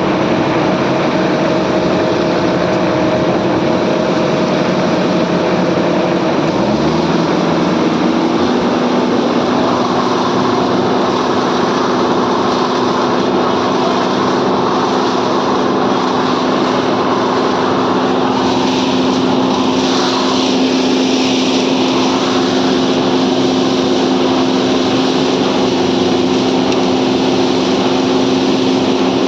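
Small engine running steadily on a construction site. About six and a half seconds in it speeds up with a rising pitch, then holds at the higher speed.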